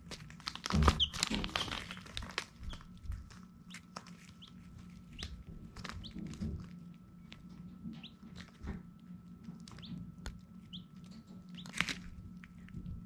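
Baby chicks peeping now and then with short high chirps, among many small taps, clicks and scratching sounds, with a burst of thumps and rustling about a second in. A steady low hum runs underneath.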